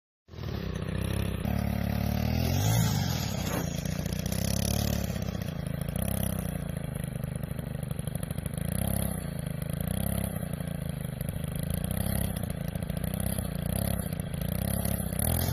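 An engine running continuously, its pitch wavering slowly up and down, with a short rev about two seconds in.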